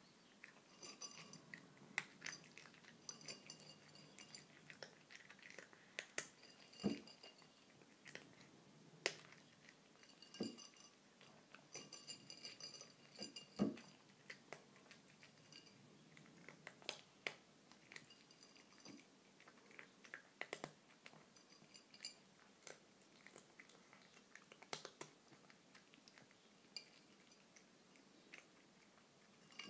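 A kitten crunching dry kibble from a ceramic plate: a continuous run of small crunches and clicks, with three louder knocks in the first half.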